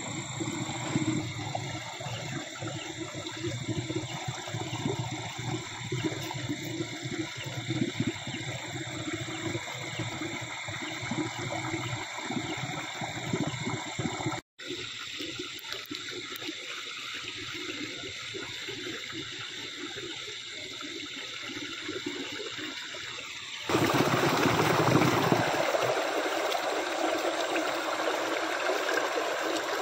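Water rushing and splashing steadily past a concrete wall. It drops out for an instant about halfway through, and near the end the flow becomes louder and brighter.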